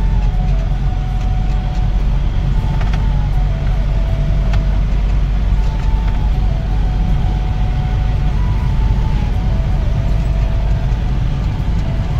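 Steady low engine and road rumble inside the cab of a moving pickup truck. Over it, music plays a melody of held notes that step up and down.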